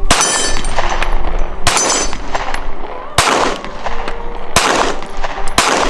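Pistol firing five shots, one every second to second and a half, each a sharp crack.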